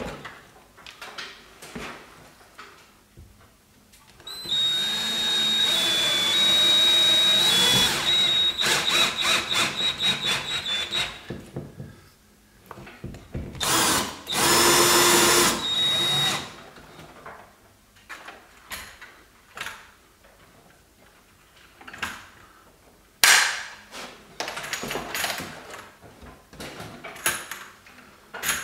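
Battery cordless drill-driver running into a plasterboard ceiling in two runs of several seconds, with a steady high motor whine; the first run breaks into a fast stutter of clicks as it ends. Scattered knocks and clicks of handling follow near the end.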